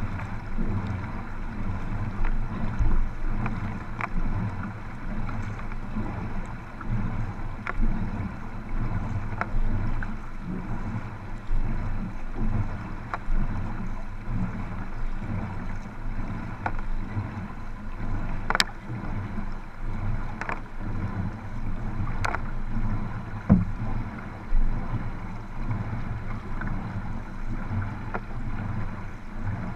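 Water sloshing and splashing right at a low, waterline camera beside racing canoes being paddled, with wind rumble on the microphone. Sharp splashes or knocks come every second or two, a few louder ones in the second half.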